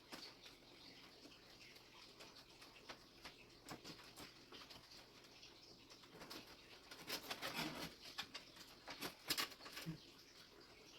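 Faint, scattered clicks and rustles of cables being handled and tucked inside a PC case, with a denser cluster of small clicks a few seconds before the end.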